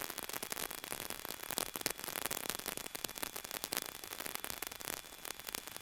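Faint, even static hiss with fine crackling, the open line of the aviation headset intercom between transmissions.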